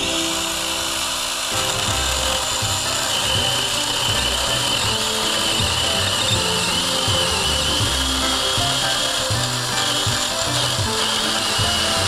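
A DeWalt 20V cordless pole saw's small battery chainsaw runs under load as it cuts through a log. The chain's whine wavers as the saw bites, over background music.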